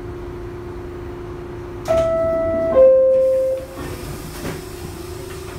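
R62A subway car door chime: two descending tones, a higher note about two seconds in and then a lower, louder note that fades out, over a steady hum. The chime warns that the doors are about to close.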